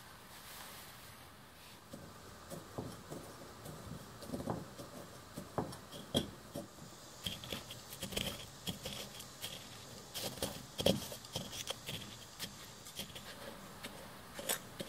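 A pestle crushing and grinding brittle dried indigo pigment flakes by hand: irregular small crunches, clicks and scrapes, starting about two seconds in.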